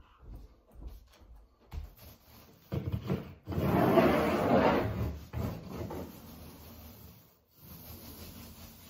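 Extra-wide paint roller on an extension pole rolling paint onto a wall: a rubbing sound that is loudest for about two seconds near the middle, with fainter strokes after.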